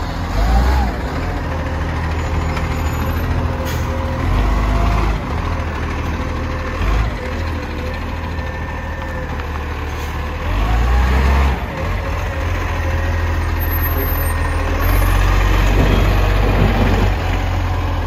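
Recycling garbage truck's engine running, its sound swelling for a second or two several times before settling back.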